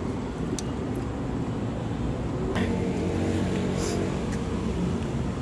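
A steady low engine-like rumble, with a humming tone that grows a little louder from about halfway in. A few faint clicks sound over it.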